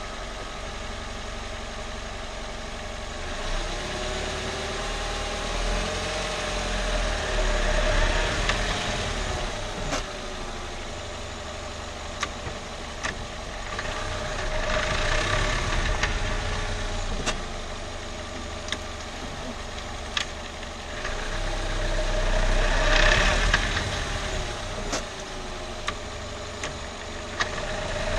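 2015 Opel Corsa pulling away and braking to a stop, three times over, its engine and road noise swelling and falling, with scattered sharp clicks. It is a noise that comes only when braking to a stop, which the owner rules out as pads, caliper pins or suspension.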